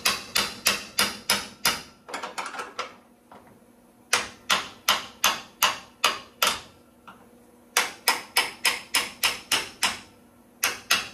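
Hammer tapping on the end of a 9/16 wrench, sharp metal-on-metal taps about three a second in runs of several with short pauses between. The taps are meant to shock loose a nut welded onto a seized, broken fender bolt.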